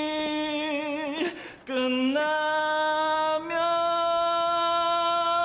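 A solo voice singing a Korean ballad unaccompanied, in long held notes. There is a short break about a second and a half in, then one long note that steps up in pitch twice.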